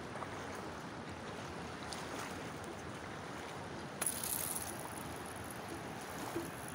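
Steady rush of river water and wind. About four seconds in, a fishing rod is cast, with a sudden hiss of about a second as the line swishes out.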